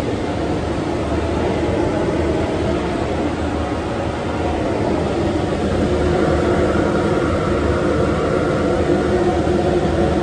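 Fume Dog wall-mounted 1200 CFM HEPA weld fume extractor running: its blower pulls a steady rush of air through the 8-inch arm and hood, with a constant hum.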